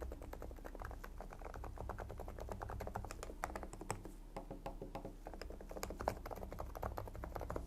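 Fast typing on a gasket-mounted mechanical keyboard with AVAX Silent linear switches (Gateron-licensed): a dense run of very quiet, soft key presses.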